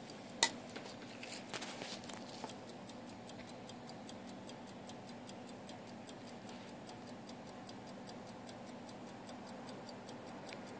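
Illinois Watch Company pocket watch, freshly cleaned, reassembled and lubricated, running with its movement open: the escapement ticks steadily at about five ticks a second. A single sharp click comes about half a second in, and a short burst of louder clicks follows about a second later.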